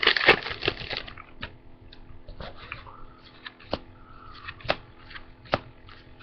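Foil booster-pack wrapper crinkling as it is torn open, for about the first second. After that, a scattered string of light clicks and taps as the trading cards are handled.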